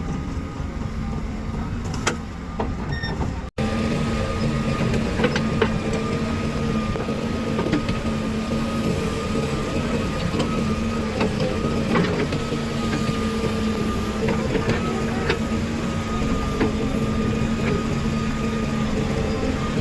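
Diesel engines of backhoe loaders and tractors running steadily under work, a steady engine drone with scattered knocks. The sound drops out for an instant about three and a half seconds in, then comes back.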